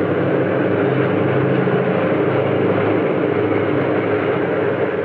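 Diesel-electric locomotive engine running with a steady, even drone.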